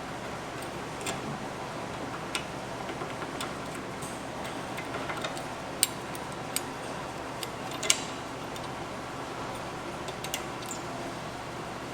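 Scattered light metallic clicks and taps of brake hardware being handled as the caliper spring goes back on over the new front pads, over a steady background hiss. The two sharpest clicks come about six and eight seconds in.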